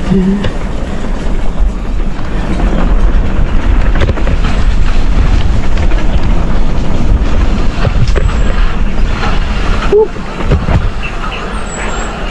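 Mountain bike rattling and bumping down a rough downhill trail, with loud wind rush and rumble on the camera's microphone; it eases off about ten seconds in.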